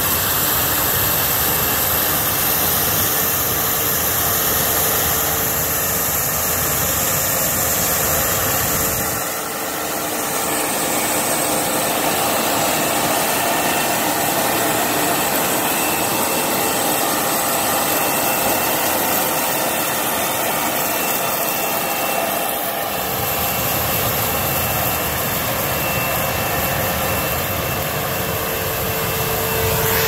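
John Deere CS690 cotton picker running in the field: a steady diesel engine and fan roar with a few held tones over it. The low rumble drops away abruptly about nine seconds in and returns about twenty-three seconds in.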